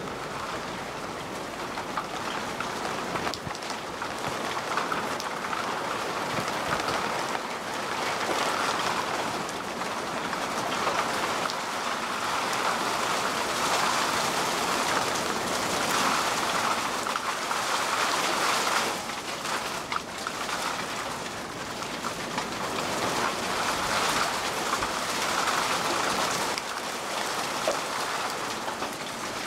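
Torrential rain pelting down onto a waterlogged street and puddles, a dense steady hiss of drops that swells and eases.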